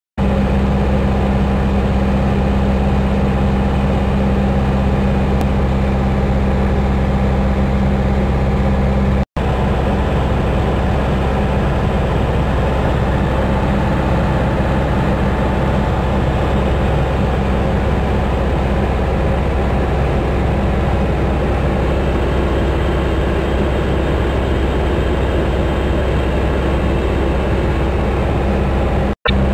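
Steady drone of a Diamond DA40's single piston engine and propeller in cruise, heard from inside the cabin. The sound cuts out for a split second about nine seconds in and again near the end.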